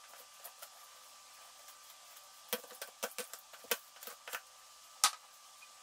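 Kitchen knife clicking and knocking against its work surface while catfish skin is worked off: about ten sharp knocks over two and a half seconds, the loudest near the end, over a faint steady hiss.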